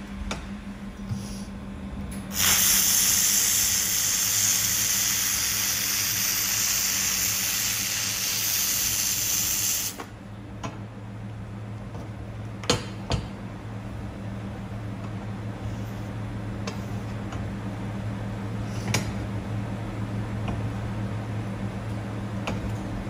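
Handheld laser welding gun with wire feed running a fillet weld on 3.5 mm mild steel: a loud, steady hiss starts sharply about two seconds in and cuts off about seven seconds later. A steady low hum sits underneath throughout, and a few short knocks follow the weld.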